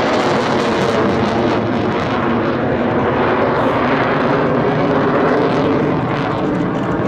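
Aircraft engine noise: a loud, steady drone made of several pitched tones over a rushing roar.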